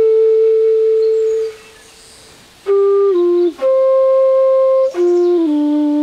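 Bansuri, a side-blown Indian bamboo flute, playing a slow melody of long held notes. The first note fades out about a second and a half in. After a pause of about a second the melody resumes, stepping down, then up to a higher note, then down to a low held note.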